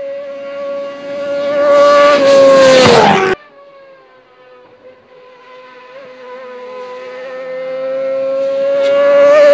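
Kawasaki ZX-6R supersport race bike's four-cylinder engine, breathing through an Akrapovič development race exhaust, at high revs as the bike approaches at speed and passes with a drop in pitch, cut off abruptly about three seconds in. The bike is then heard again from further off, growing steadily louder toward the end.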